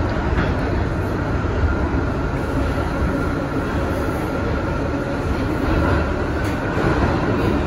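R62A subway car running at speed, heard from inside the car: a steady rumble of wheels on the rails with a faint, steady whine above it.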